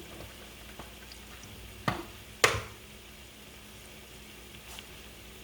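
Kitchen handling sounds: two sharp knocks about two seconds in, half a second apart, the second louder, over a faint steady hiss.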